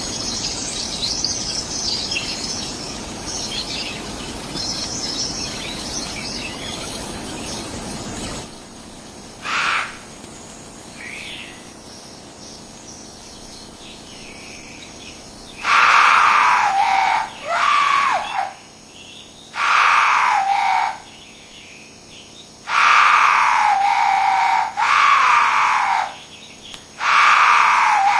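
An animal calling: about six loud, harsh calls, each a second or two long and dropping in pitch at its end, in the second half. Before them comes a hiss of background noise with faint high chirping.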